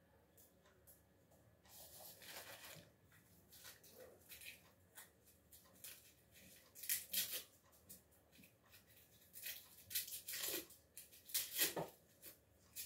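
Dry, papery garlic skins rustling and crackling as they are peeled off by hand and handled at a glass jar, in faint irregular bursts, the loudest ones in the middle and near the end.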